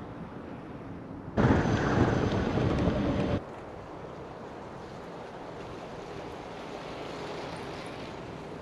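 Wind rushing over the camera microphone for about two seconds, starting and stopping abruptly, between stretches of soft, steady outdoor background noise.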